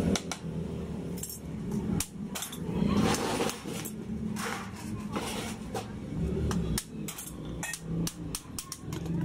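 Hammer blows on thin steel sheet held over a small steel anvil stake: an irregular run of sharp metallic taps, several a second at times, as the sheet is shaped into a curve.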